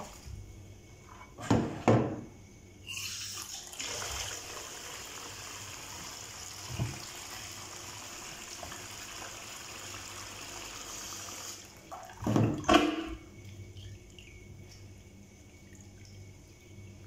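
Tap water running steadily into a stainless steel basin holding smoked fish. It starts about three seconds in and cuts off at about eleven and a half seconds. A brief loud splash comes before it and another right after it, and then fainter sloshing as hands rinse the fish.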